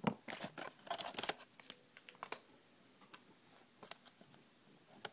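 Handling noise close to the microphone: a quick run of sharp clicks and rubs as small plastic toys are handled, thinning to a few scattered clicks, with one more click near the end.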